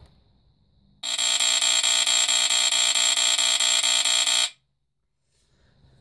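Statitrol SmokeGard 907B2 smoke detector's Kobishi CLB-26 AC vibratory horn sounding a harsh, pulsating buzz on a press of the test button. It starts about a second in, runs for about three and a half seconds and cuts off suddenly.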